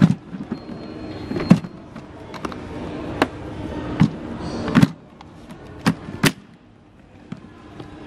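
Hard plastic clicks and knocks of a Henry Pet vacuum cleaner's lid clips and motor head being unclipped and lifted off the tub, about seven sharp clicks spaced irregularly, with handling rustle between.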